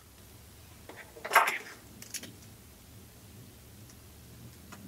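Faint handling of a printhead's small metal parts: a few light metallic clicks and a short scrape about a second and a half in, as Phillips screws are set into its metal cover plate.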